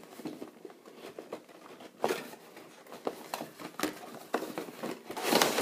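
Cardboard and clear-plastic action-figure box being handled and opened: scattered light taps and clicks, then a louder scraping rustle near the end.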